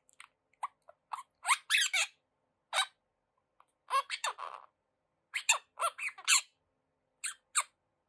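Quaker parrot (monk parakeet) chattering: a string of short squeaks and chirps, many sliding up or down in pitch, coming in quick clusters with brief pauses between.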